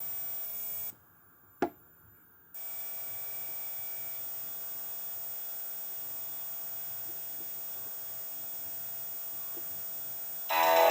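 Steady electrical hum and buzz from VHS tape playback, cutting out about a second in and returning a moment later, with one sharp click during the gap.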